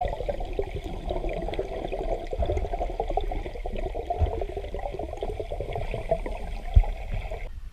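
Water sloshing and bubbling around the microphone with a dense crackle, broken by a few dull thumps; it cuts off suddenly near the end.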